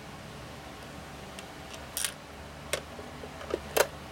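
A few short, sharp clicks and taps of plastic parts and small screws being handled, as a handheld car vacuum cleaner's plastic housing is put back together. The loudest click comes near the end, over a steady low hum.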